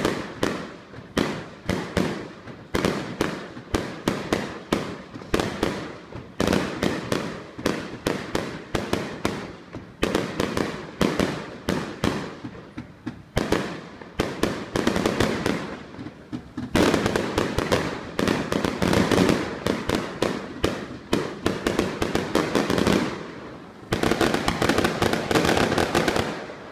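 Fireworks going off in a rapid, continuous string of bangs and crackles from aerial shells and a burning firework tower. It thickens into a near-solid barrage about two-thirds of the way through, breaks off briefly near the end, then comes back in a final dense volley that stops suddenly.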